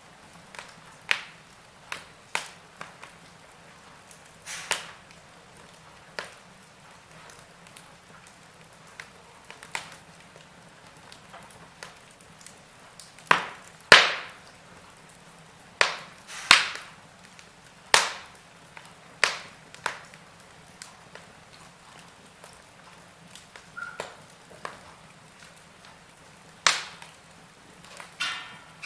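Wood fire in a fireplace crackling, with irregular sharp pops and snaps over a low steady hiss, the loudest cluster of snaps about halfway through.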